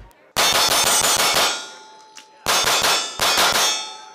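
Three bursts of rapid metallic clanging, each leaving a ringing tone behind it. The first lasts about a second, and two shorter ones follow close together past the middle.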